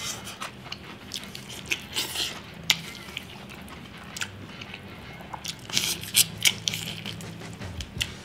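Close-up biting and chewing of crispy fried chicken: irregular crunches of the fried breading, with a quick run of them about six seconds in.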